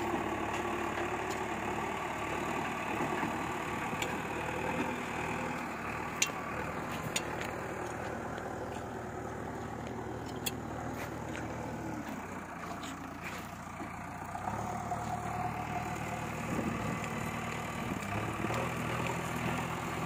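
JCB backhoe loader's diesel engine running steadily as the machine drives and turns across the field. Its note drops about twelve seconds in and picks up again a couple of seconds later, with a few sharp knocks along the way.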